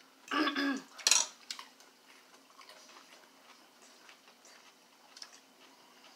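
Metal fork and spoon clinking and scraping against a bowl. The loudest sound is a sharp clink about a second in, right after a brief scrape; after that there are only faint light taps.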